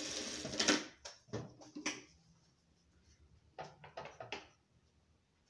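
Industrial sewing machine stitching, stopping within the first second. A few sharp clicks and fabric rustles follow as the sewn piece is handled.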